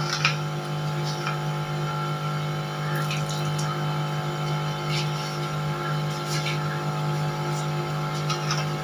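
A steady machine hum with a few faint clicks.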